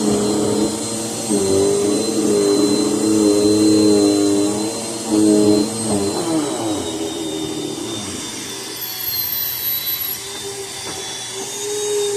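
Vacuum cleaner running with a steady motor whine. The lower hum shifts in pitch now and then as it works over the mess, and it is a little louder in the first half.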